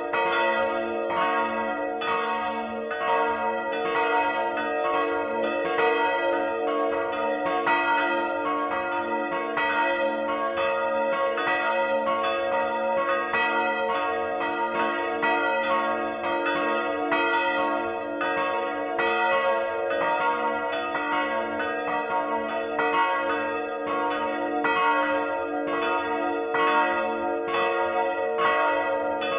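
Swinging bronze church bells ringing together in a full peal, close up in the bell chamber: the 1759 Johann Peter Bach bell (strike tone C♯5) and two 1952 Rincker bells, one with strike tone A4. Their strikes overlap several times a second over a steady, continuous hum.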